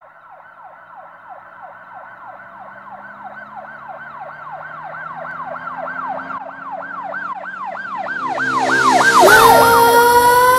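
Siren-like sweeping wail, swooping up and down about four times a second, slowing and growing louder throughout. About nine seconds in it gives way to a held, slowly rising tone with a rush of noise.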